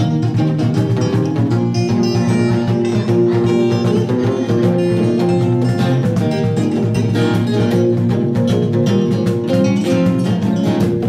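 Acoustic guitars playing an instrumental passage together, with picked and strummed notes in a steady flow.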